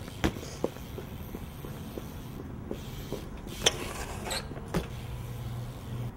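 BMX bike riding on concrete: tyres rolling, with sharp knocks and clacks as it hops and lands. The loudest clack comes about three and a half seconds in, as the bike hits a concrete ledge.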